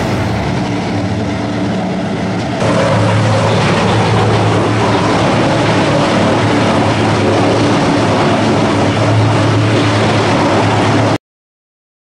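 Large drum wood chipper (ROTEX MASTER YMPJ-2113, 315 kW) running under test, a dense steady machine noise with a low hum. It gets louder about two and a half seconds in, then cuts off abruptly near the end.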